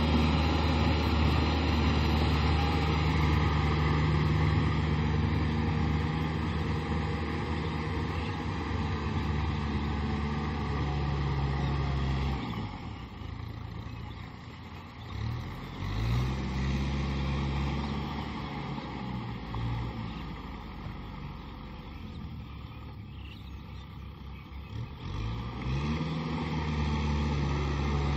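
Kubota M6040 SU tractor's four-cylinder diesel engine running steadily under load while it cultivates a flooded rice paddy. About twelve seconds in the sound fades as the tractor moves away, and the engine speed dips and rises several times. It grows louder again near the end as the tractor comes back.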